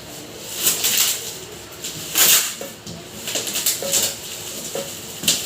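Packaging being handled while a pressure washer is unboxed: several short bursts of rustling and scraping, the loudest about two seconds in, with a few light clicks between them.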